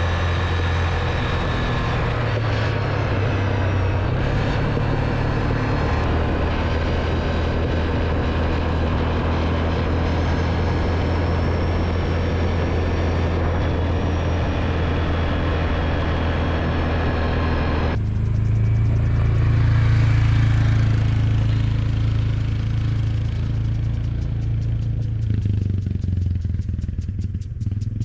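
A vehicle engine running steadily with a strong low hum. About eighteen seconds in, the sound changes abruptly and becomes duller.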